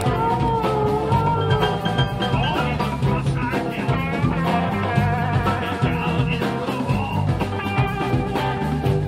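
Live blues band playing an instrumental passage, with electric guitar over a steady bass and drum groove.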